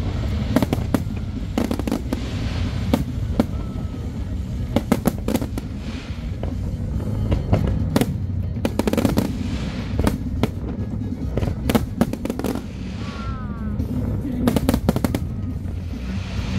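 Fireworks display: aerial shells bursting in a rapid, uneven series of sharp bangs over a continuous low rumble.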